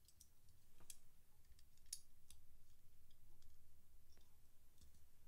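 Faint, scattered small clicks of a die-cast Corvette toy car being handled and turned over in the fingers, a few of them sharper about one and two seconds in.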